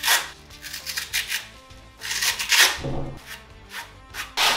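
A hook-and-loop sanding sheet being peeled off the triangular pad of an electric detail sander: raspy ripping noises, the longest about halfway through, over background music.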